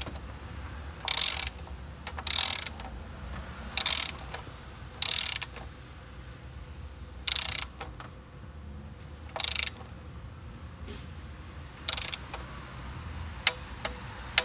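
Ratchet wrench on a socket extension clicking in seven short bursts, a second or two apart, as it is swung back between strokes while tightening the intake plenum bolts to torque.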